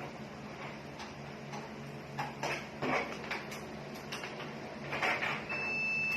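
Desktop PC switched on with its RAM removed: the fans run with a low hum and a few short rustling noises. About five and a half seconds in, the motherboard buzzer starts a steady high-pitched beep, the alarm for no memory detected.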